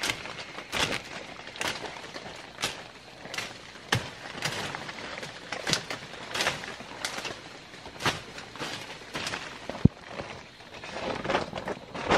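Machete slashing through dry undergrowth, short sharp chops about every two-thirds of a second, turning to a denser crackle of snapping and rustling twigs near the end.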